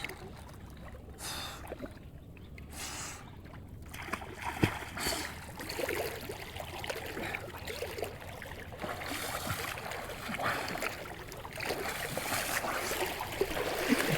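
Water in a stream running and splashing, louder from about four seconds in, with a single sharp knock shortly after.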